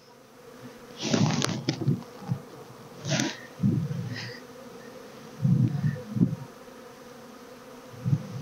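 Honeybees buzzing steadily around an open hive, disturbed by the inspection. A few short bursts of handling noise, about one and three seconds in, as frames are pried and lifted with a hive tool.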